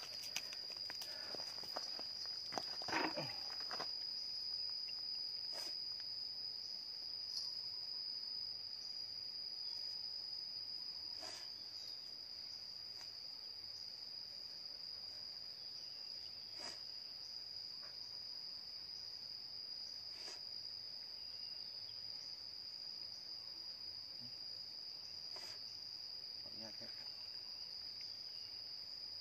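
Insects droning in one steady, unbroken high-pitched tone. A few faint, sharp clicks are spaced several seconds apart.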